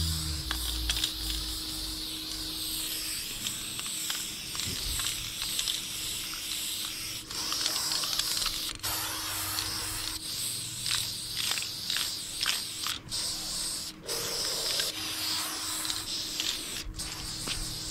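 Aerosol spray-paint can hissing as brown paint goes onto a concrete wall: long sprays broken by brief pauses, with a run of short spurts in the second half.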